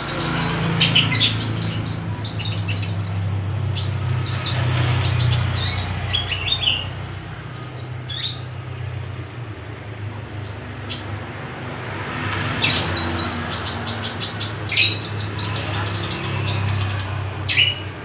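Caged olive-backed sunbird (konin) and lovebird calling against each other: sharp, high chirps and short trills in clusters, busiest in the first seven seconds and again from about twelve seconds on, over a low steady hum.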